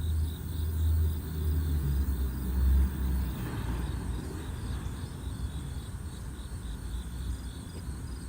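Outdoor ambience: insects chirping in a steady repeated pulse over a low rumble, with the rumble loudest in the first three seconds and easing after.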